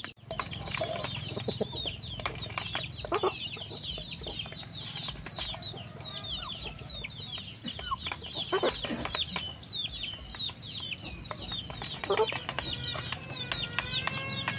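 Young chicks peeping without pause, many short high falling cheeps, with hens clucking now and then. Near the end an adult chicken gives a longer held call.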